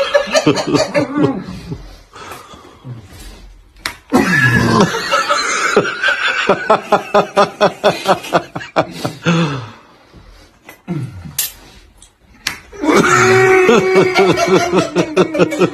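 Loud laughter in three bouts: long, drawn-out high-pitched stretches, with a run of rapid 'ha-ha' pulses at about four a second in the middle bout.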